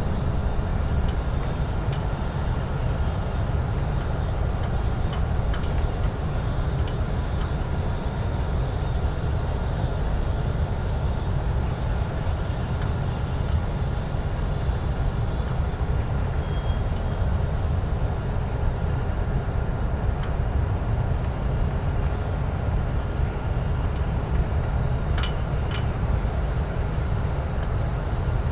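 Downtown street ambience: a steady, dense low rumble of traffic, with two brief sharp clicks near the end.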